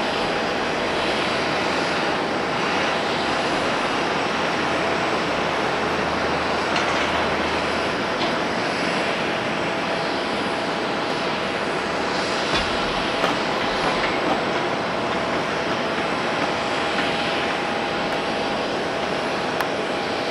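Boeing 777-300ER's twin GE90 turbofans running as the airliner rolls out after landing, a steady distant rushing noise with a faint steady whine in it.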